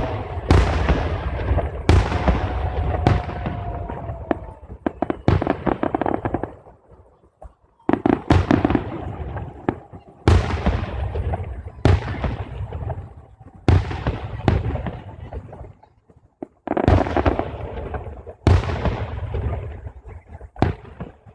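Fireworks display: loud bursts in quick succession, each followed by crackling, coming in three waves with brief lulls between them.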